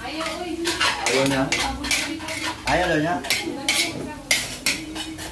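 Metal spatula scraping and clattering against a wok as vegetables are stirred, in quick irregular strokes.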